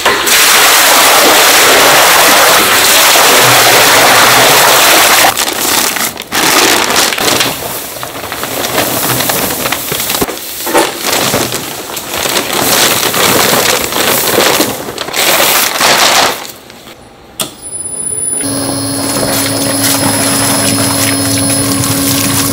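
Liquid poured in a loud, steady splash from a bucket into a stainless steel mixing vat, followed by powder shaken out of a sack with rustling and scraping. About eighteen seconds in, the vat's mixer motor starts up with a steady hum.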